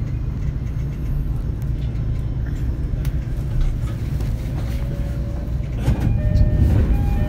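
Running noise of a JR East E231-series electric train's motor car: a steady low rumble from the running gear on the track. Thin steady tones join in about six seconds in.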